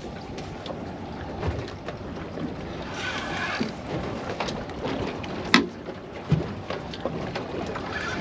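Water and wind noise around a boat at sea, with scattered knocks and clicks on board; the sharpest click comes about five and a half seconds in.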